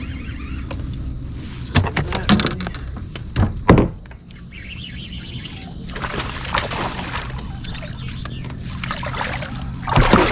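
A hooked bass splashing and thrashing at the water's surface beside a kayak, in several loud bursts, over a steady low hum.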